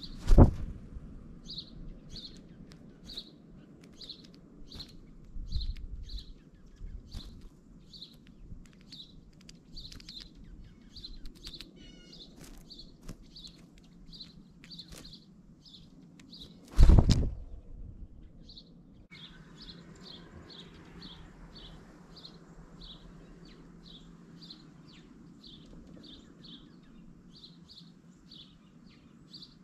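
A small songbird chirping steadily, short chirps about twice a second, with two loud thumps close to the microphone, one just after the start and one about 17 seconds in.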